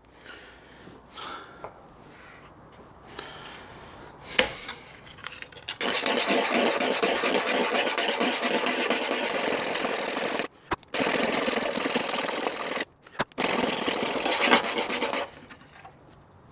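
Sandpaper scratching steadily on a door hinge part, in a loud continuous run from about six seconds in until near the end, stopping briefly twice. Before it come softer scrapes and one sharp knock.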